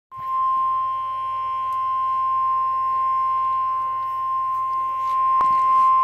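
Midland weather alert radio sounding the NOAA Weather Radio warning alarm tone, one steady unbroken beep that signals an alert, here a tornado watch. A faint click about five and a half seconds in.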